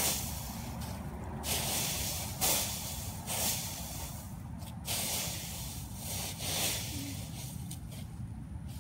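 Dry fallen leaves rustling in repeated swishes as they are scooped and piled back up into a leaf pile, several bursts about a second apart.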